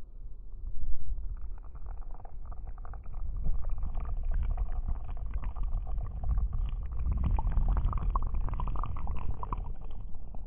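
Deep, steady rumble of a large waterfall's falling water, growing louder about three seconds in.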